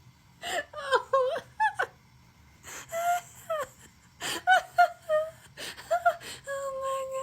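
A pet parrot chattering in short squeaks and gliding whistled calls, with a few clicks, and one steady held whistle near the end.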